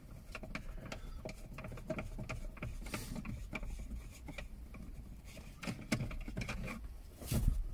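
A small screwdriver working tiny screws out of plastic steering-column trim: a run of light, irregular clicks and ticks of tool and plastic, with a few louder knocks near the end.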